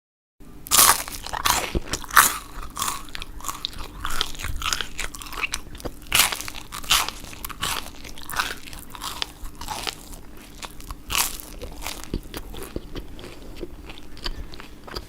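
Someone biting into and chewing crunchy toast. A few loud, crisp bites come in the first couple of seconds, followed by steady crunchy chewing.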